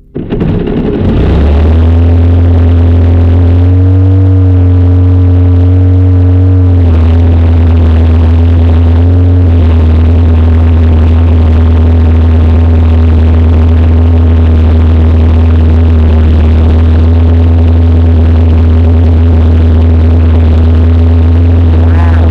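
Motorcycle land-speed streamliner's engine starting and then running steadily, very loud inside the cockpit. Its revs rise about four seconds in and drop back about three seconds later, with a smaller blip near nine seconds.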